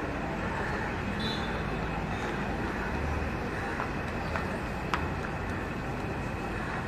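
Steady street traffic noise, an even rush of passing vehicles, with one sharp click about five seconds in.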